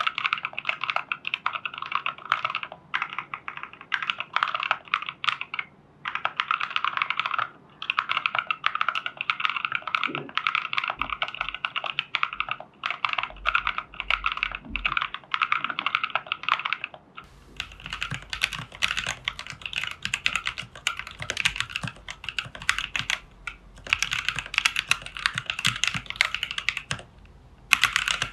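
Continuous typing on a plateless TU40 mechanical keyboard with NovelKeys Cream linear switches, a fast run of key clicks broken by short pauses. About 17 seconds in the keystrokes turn brighter and crisper.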